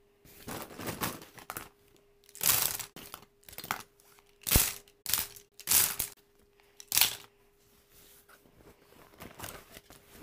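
Handling noise as things are picked up and set down on a bed: rustling and sharp knocks in irregular bursts from a wicker basket of pens, a coloring book and the bedspread.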